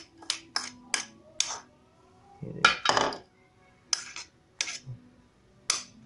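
About ten sharp, unevenly spaced taps and clinks as a plastic plate is knocked and scraped against the rim of a stainless steel bowl of bird seed, shaking off the last of a formula paste.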